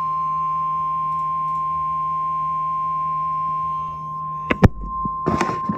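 Emergency Alert System warning tone: the single steady 1050 Hz alarm tone used by NOAA Weather Radio, sounding continuously. A couple of sharp clicks and a burst of static come in its last second and a half.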